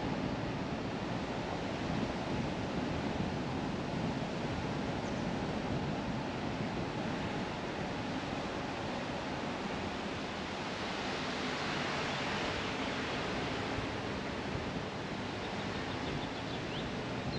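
Steady road and wind noise from a car driving on a narrow paved lane, with a brighter hiss swelling for a few seconds around the middle.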